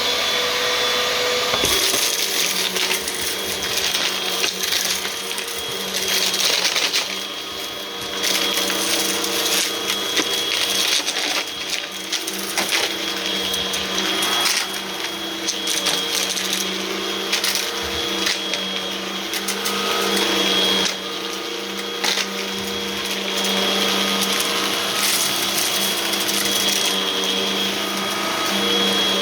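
Hoover vacuum cleaner running with its brushroll, a steady motor hum and high whine over a broad rushing hiss, swelling and dropping in loudness every few seconds.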